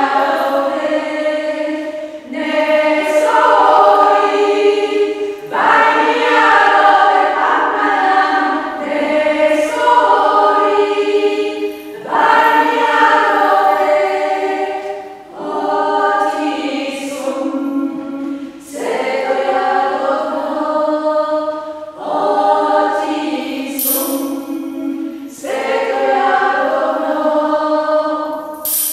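Small women's vocal ensemble singing a cappella in harmony, in phrases a few seconds long with short breaks for breath between them.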